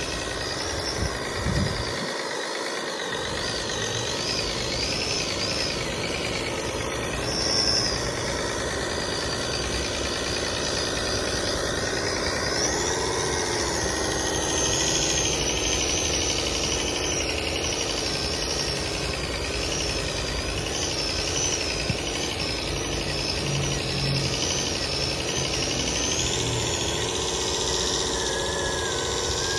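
Radio-controlled model truck and excavator running: a steady engine-like drone with a high whine that wavers up and down in pitch.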